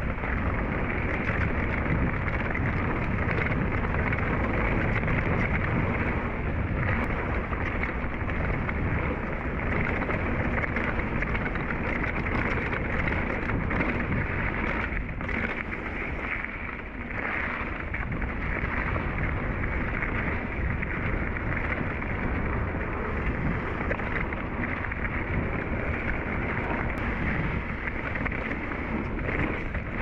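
Wind rushing over the camera's microphone while a Rocky Mountain Thunderbolt mountain bike rolls fast down a dirt trail, its tyres running on the dirt. The noise is steady, easing briefly about halfway through.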